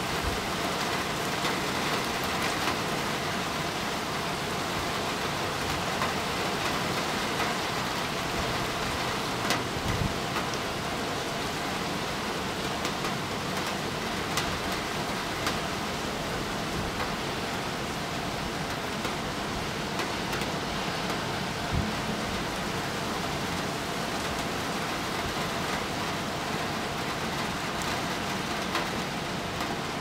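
Steady rain falling: an even hiss without breaks, with a few sharper ticks now and then.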